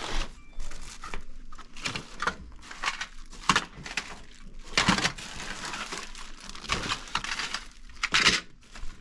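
Irregular rustling and clattering as objects are handled, in short noisy bursts. The loudest come about five seconds in and near the end.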